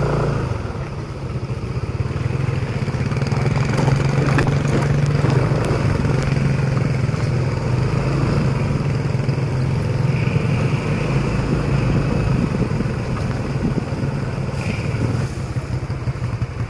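A motor engine running steadily with a low drone, its pitch holding fairly even.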